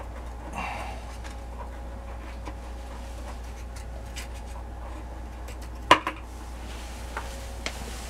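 Light handling clicks and rubbing of hands and small parts at an electric water heater's drain valve and lower element port, with one sharp knock just before six seconds in, over a steady low hum.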